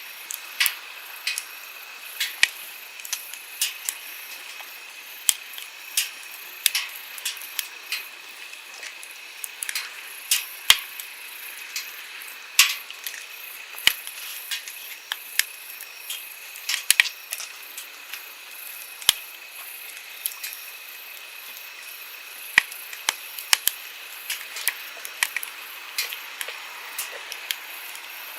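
Wood campfire crackling, with frequent irregular sharp pops and snaps over the steady rush of a flowing stream.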